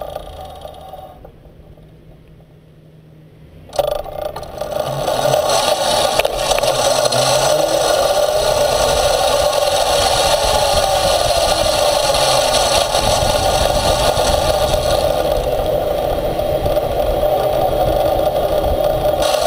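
Electric off-road skate's drive motor and wheels running on asphalt. After a quieter first few seconds, the sound jumps up suddenly about four seconds in to a loud, steady hum with rattling and scraping, its pitch drifting slightly as the speed changes.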